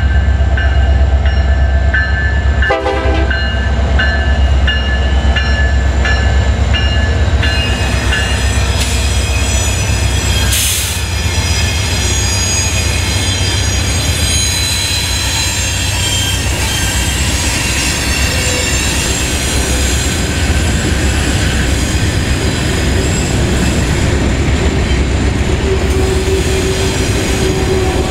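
A diesel freight train passes through a grade crossing. The locomotives' engines rumble steadily and a short horn note sounds about three seconds in. From about eight seconds, steel wheels on the rails and a high wheel squeal take over as the freight cars roll by. The crossing bell rings in the first several seconds.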